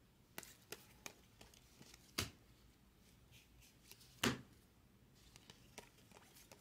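Baseball trading cards being flipped one by one through a stack held in the hands: a string of light flicks and snaps, with two louder slaps about two seconds in and just past four seconds in.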